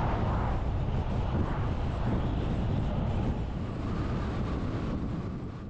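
A vehicle driving at highway speed: steady road and engine noise that eases off near the end.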